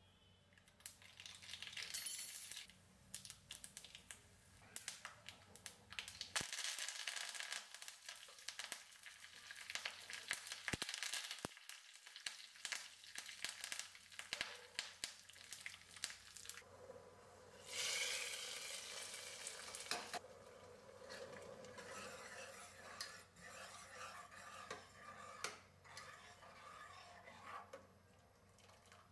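Tadka in a small steel tempering pan: mustard seeds popping and crackling in hot oil, then curry leaves and dried red chillies sizzling as a metal spoon stirs them. A louder burst of sizzling comes about two-thirds of the way through.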